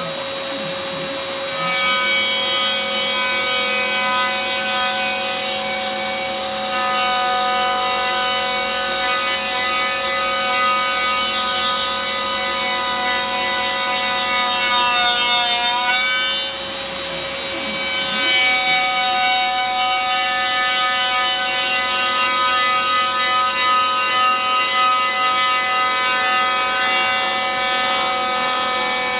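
CNC router spindle whining steadily as its cutter faces the top of a redwood board, with a rasping wood-cutting noise under the whine. About halfway through, the whine sags in pitch for a moment and then comes back up.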